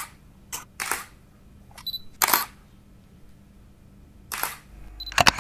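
DSLR camera shutter firing about five times at irregular intervals. A short high beep, like an autofocus confirmation, comes just before two of the shots.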